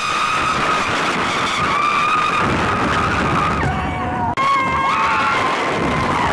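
Wooden roller coaster train (the Giant Dipper) rattling and rumbling along its track at speed, with long high-pitched squeals held over the noise; the sound breaks off briefly about four seconds in.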